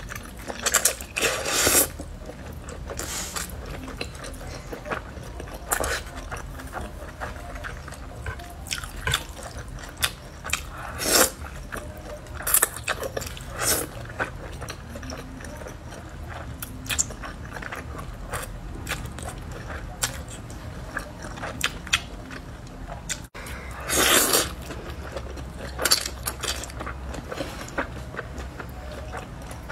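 Close-miked slurping and chewing of wide liangpi noodles in sesame sauce: wet mouth sounds with soft chewing clicks throughout, broken by several loud slurps, the longest about three-quarters of the way through.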